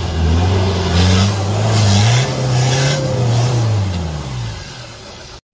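Off-road 4x4 engine revving hard under load on a steep rocky climb, its pitch rising about two seconds in and falling away near the end, with wheels spinning on loose stone and dirt.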